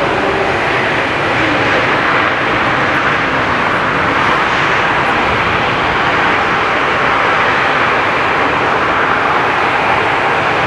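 Jet airliner engine noise on an airport taxiway: a steady, even rush with no change in level.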